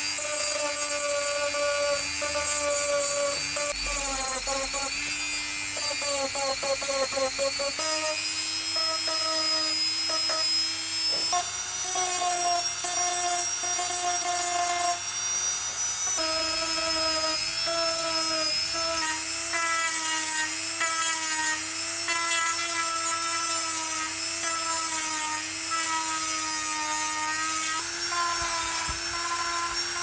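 Hand-held rotary tool with a sanding drum whining steadily as it sands the telephone's plastic housing, its pitch stepping up and down now and then as it bears on the surface.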